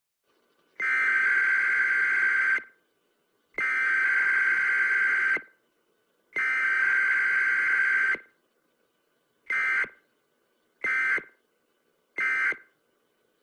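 Emergency-broadcast-style alert tones: three long beeps of about two seconds each, then three short beeps.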